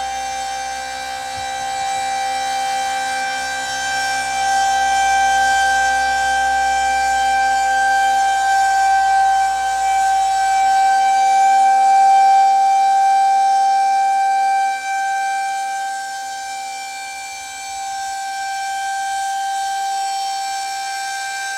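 Federal Signal 2001-130 electromechanical civil-defense siren sounding the steady Alert tone: one unbroken wailing pitch that holds without rising or falling. Its loudness swells and fades slowly.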